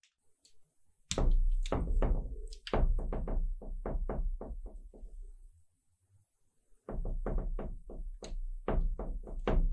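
A cat's paws knocking and thumping against a mirror as it rears up and bats at a dangling chain. A quick, uneven run of knocks lasts about four seconds, then after a short pause a second run starts near the end.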